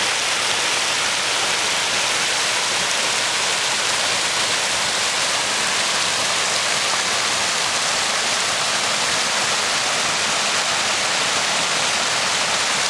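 Bushkill Creek running fast: a steady, unbroken rush of flowing water.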